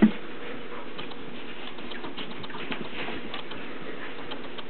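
A ferret and a hound puppy scuffling in a play-fight: one thump right at the start, then quick, light pattering and scratching of paws and claws that keeps on throughout.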